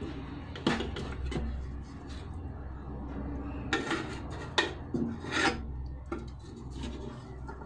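A wooden spatula and a wooden stick scraping and knocking against a metal cooking pot while a whole boiled chicken is levered out, in a handful of short scrapes, the loudest about four to five and a half seconds in. A steady low hum runs underneath.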